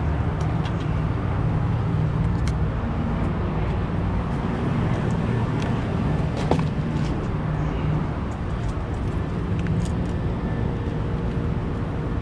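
Steady low hum of rooftop HVAC equipment running, with a few light clicks and taps as the control panel and its packaging are handled.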